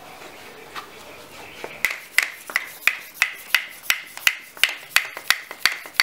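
Bicycle hand pump being worked quickly to inflate the tire, a steady run of sharp strokes about three a second starting about two seconds in.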